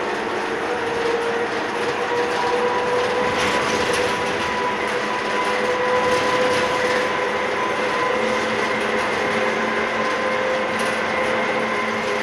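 Tateyama Tunnel Trolleybus running through its tunnel, heard from the cab: a steady electric whine of several held tones over even tyre and running noise.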